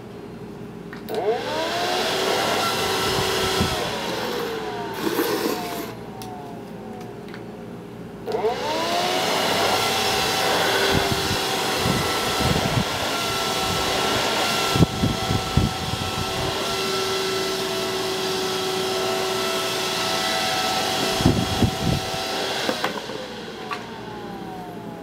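Vantec Tornado 80mm high-speed fan blowing into a cardboard box to float it. About a second in it spins up with a rising whine and rush of air, runs for about three seconds, then winds down. It spins up again about eight seconds in and runs with a steady whine and air rush until near the end, when it winds down, with a few knocks along the way.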